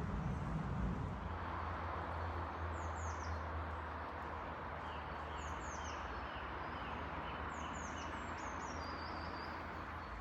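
Small songbirds calling in runs of short, falling high chirps over the steady roar of traffic on a main road.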